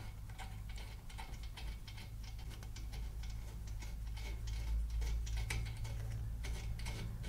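Light, irregular metallic clicks and ticks of a hex bolt being turned by hand into a threaded hole on the underside of a bandsaw table; the bolt is the table's 90-degree stop bolt. A steady low hum runs underneath.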